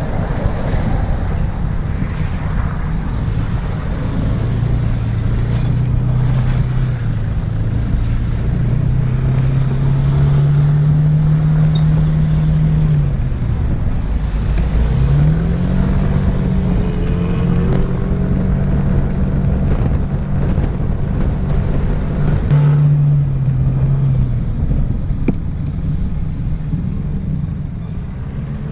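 Yamaha N-Max 125 scooter's single-cylinder engine under way in traffic, its note climbing steadily as it pulls away, dropping, climbing again and holding, then easing off near the end. Heavy wind and road noise runs underneath.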